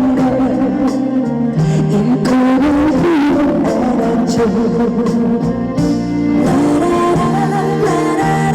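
A slow ballad performed live over a PA system: a woman singing over backing music.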